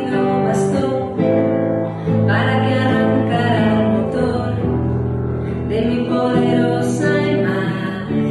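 Live acoustic folk song: a singer's voice over strummed acoustic guitar, with double bass and hand percussion.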